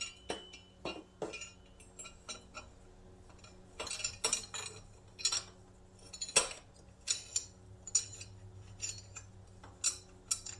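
Light metal clinks and knocks of a polished metal exhaust header pipe being worked by hand against the exhaust port and studs of an ATV engine's cylinder head. The knocks are irregular and come in small clusters, the loudest about six seconds in.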